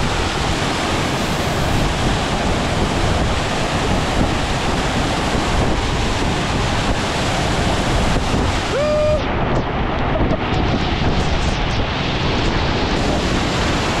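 Waterfall crashing into a rock pool, a loud steady rush and splash of water right at the microphone. A short shout rings out about nine seconds in, and after it the sound turns duller for a few seconds.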